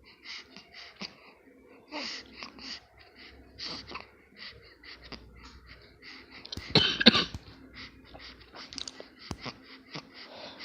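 A young child's breathy, gasping giggles in many quick short bursts, laughter broken up by hiccups, with one louder burst of laughter about two-thirds of the way through.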